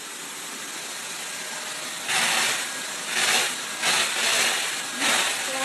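Vacuum cleaner running with a steady hissing whine, then swelling louder about once a second as it is worked over a dog's coat.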